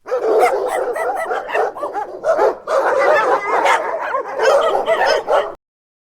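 Dog barking many times in quick succession, mixed with higher yips, then cutting off suddenly about five and a half seconds in.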